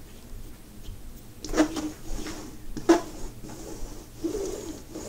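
A sticky lint roller rolled and rubbed across the drill-covered surface of a diamond painting, a faint rasping, with two sharp knocks, about one and a half seconds in and again near three seconds.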